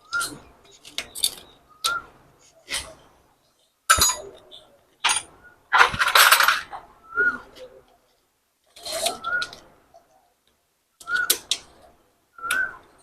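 Hand tools and metal parts clinking and knocking on a motorcycle engine during timing-chain work, in about a dozen short, separate strikes with a longer scraping rattle about six seconds in. Short high chirps come with several of the strikes.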